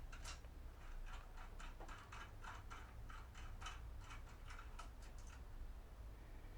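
Faint, irregular light metallic clicks and taps, several a second, from a Mottura lock-pick tool and lock being handled, over a steady low hum.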